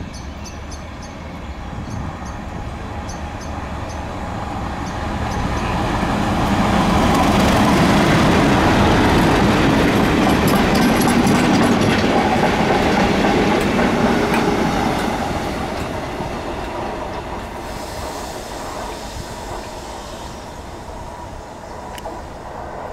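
A Class 37 diesel locomotive hauling a test train passes by. Its English Electric V12 diesel engine and the wheels on the rails build up, stay loudest for several seconds in the middle, then fade as the coaches run past and away.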